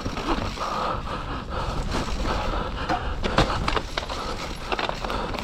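Mountain bike descending a wet, muddy trail: continuous tyre and trail noise with frequent clicks and rattles from the bike as it slides for traction on the slick ground.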